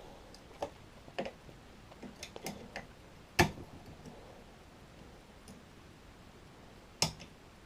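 Scattered metallic clicks and taps of a multi pick working the levers of a five-lever mortice deadlock, with two louder clicks, one about three and a half seconds in and one near the end.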